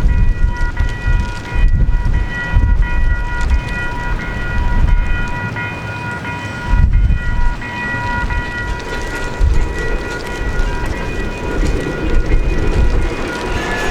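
Diesel locomotive train running past: a heavy, uneven low rumble with a steady high whine over it.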